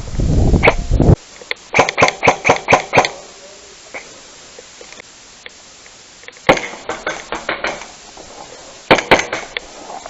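Airsoft gun firing three strings of quick sharp shots, the first and longest about a second and a half long. A low rumble comes before them for about the first second.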